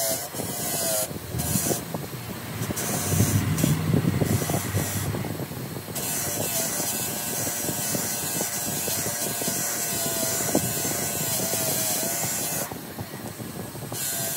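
Bench grinder running with a steady motor whine while the rusty steel housing of a starter motor is scrubbed against its spinning wheel to strip the rust. The scratchy hiss cuts out and comes back several times as the housing is lifted off and turned, with a longer break near the end.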